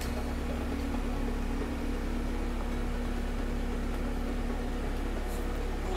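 A steady low mechanical hum with a constant tone, unchanging throughout.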